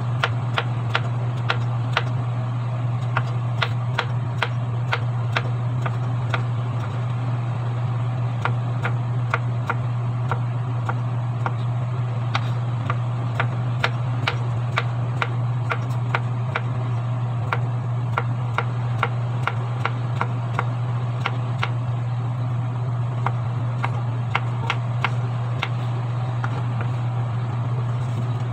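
A kitchen knife slicing bottle gourd, its blade knocking on the cutting board in quick, uneven clicks a couple of times a second. A steady low hum runs underneath throughout.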